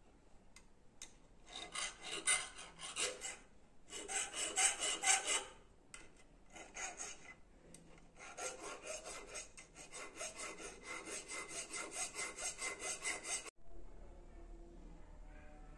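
Needle file rasping back and forth on a silver ring's stone setting, in short runs of quick strokes, then a longer steady run of about three to four strokes a second that stops suddenly near the end.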